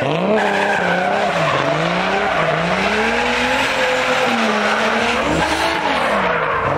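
A drift car's engine revving up and down in repeated swoops as the car slides sideways, with its tyres screeching on the asphalt.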